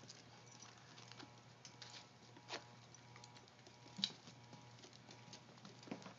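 Puppies' claws clicking and pattering on a hardwood floor as they scamper and play: faint scattered ticks, with a sharper click about four seconds in.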